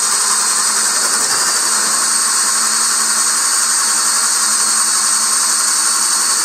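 DeWalt Atomic 20 V brushless drill in low gear (speed 1) boring a 1-1/8-inch speed bit through two pressure-treated 2x4s, running steadily under heavy load with a high motor whine and the bit chewing through the wood. The slower, higher-torque gear lets it cut through without stalling, where speed 2 could not.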